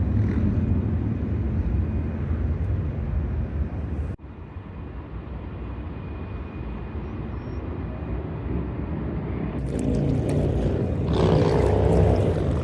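Steady low rumble of road traffic heard from the river, briefly cut off about four seconds in. Near the end it gets louder, with kayak paddle splashing.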